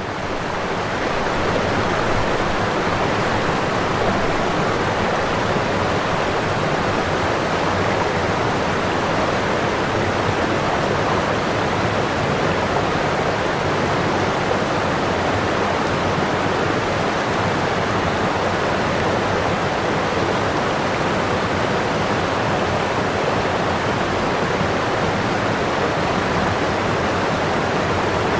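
Waterfall rushing in a steady, dense roar of falling water, swelling up to full level in the first second or so.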